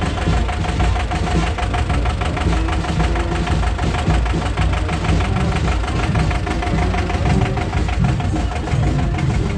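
Vintage tractor's diesel engine running steadily at low revs close by, an even knocking chug.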